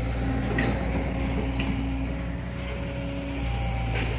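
Diesel engine of a long-arm hydraulic excavator running steadily, easing off slightly about halfway through and picking up again near the end.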